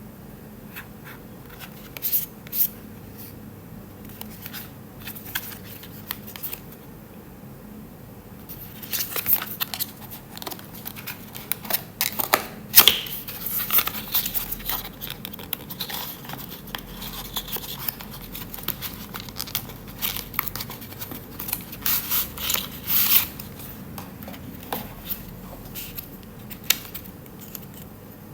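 Product packaging being handled and opened by hand: a few scattered clicks and taps at first, then from about nine seconds in, a long stretch of crinkling, rustling and tearing with sharp clicks.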